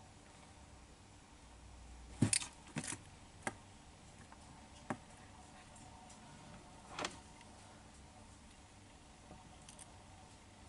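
Leopard gecko eating a mealworm: a handful of sharp, short clicks and crunches, the loudest a little over two seconds in, then a few more spread out over the next five seconds.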